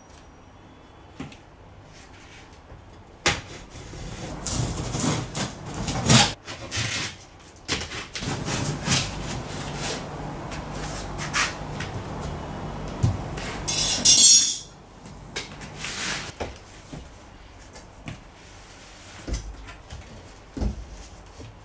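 A large cardboard shipping box being cut open and handled: packing tape slit with a blade, cardboard scraping and knocking, and the top flaps lifted open near the end. One loud hissing rasp about two-thirds of the way through.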